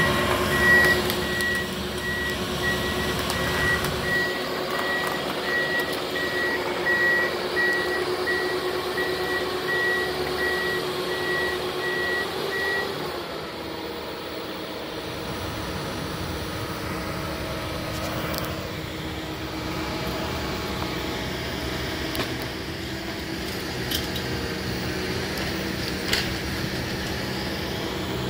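Heavy construction machine working debris: its reversing alarm beeps over and over over the steady running engine, then stops about thirteen seconds in while the engine keeps running at a slightly lower pitch.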